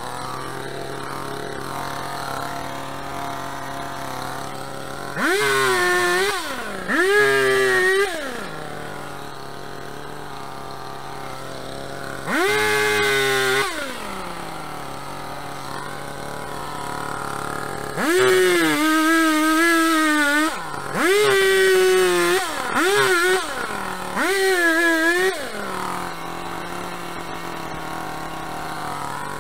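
Petrol chainsaw idling, with about seven short bursts of full throttle as it cuts into tree-stump roots, each rev jumping up in pitch and dropping back to idle. It is a rented saw whose chain the user finds cuts very poorly, charring the cut and throwing sparks.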